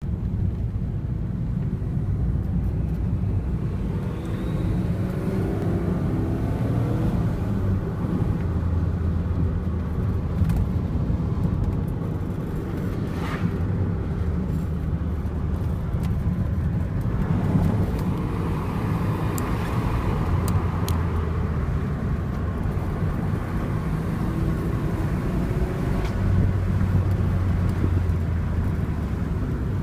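Alfa Romeo GTV V6 Turbo engine running steadily, with a few gentle rises and falls in pitch and a handful of short sharp clicks in the middle stretch.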